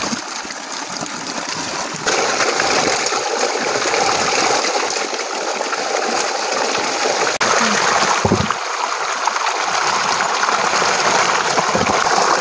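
A strong jet of water gushes and splashes onto a steel bowl and plates of potatoes as hands scrub them clean under the flow. The rushing water is loud and steady.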